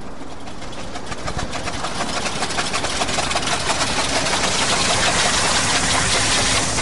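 A large old car's engine running with a rough, rapid pulse as the car drives up and pulls in, growing gradually louder as it nears.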